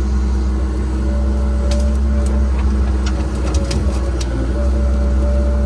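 Cat 306 excavator's diesel engine running steadily with a constant hum, with a scatter of sharp clicks and cracks about two to four seconds in.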